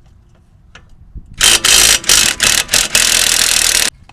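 Half-inch impact wrench working a bolt on the rear suspension: several short bursts from about a second and a half in, then a steady run that cuts off abruptly near the end.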